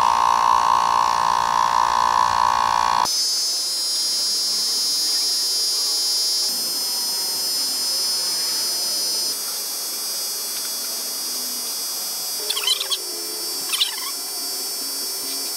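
Slime 12V portable air compressor running, its small motor and piston pump buzzing steadily as it inflates a 40-inch tire. About three seconds in, the sound changes abruptly to a thinner, higher whine, and there are two short sounds near the end.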